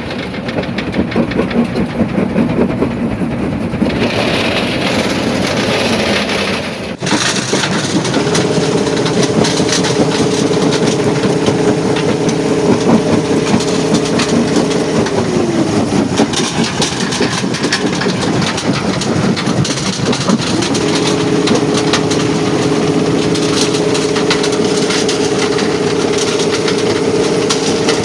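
Primary jaw crusher in a quarry crushing rock, a continuous clatter and cracking of stone under heavy machinery noise. A steady engine drone sets in about eight seconds in, drops away around fifteen seconds, and comes back a few seconds later.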